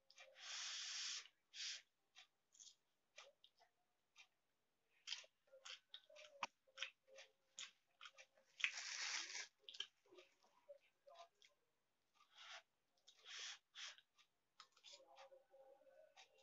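Close-up eating sounds of Maggi instant noodles and a fried-egg omelette: many short clicks and smacks from a spoon on a steel plate and from chewing, with three longer noisy bursts, about a second in, near the middle and about three-quarters through.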